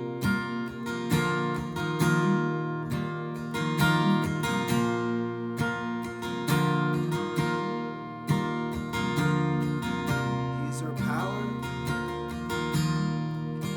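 Acoustic guitar strumming chords, with repeated strokes about once a second.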